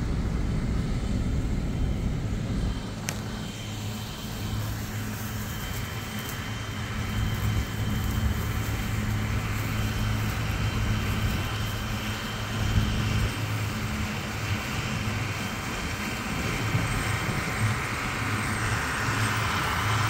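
Nissan car driving slowly over a rough hay field: a steady low rumble of engine and tyres heard from inside the cabin.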